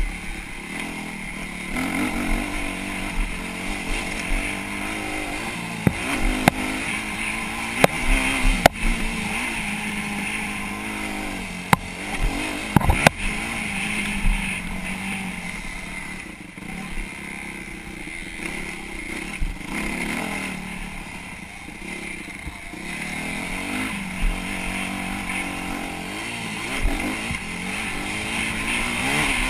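Motocross bike engine heard on board while riding a dirt track, revving up and easing off again and again. Several sharp knocks come through between about six and thirteen seconds in.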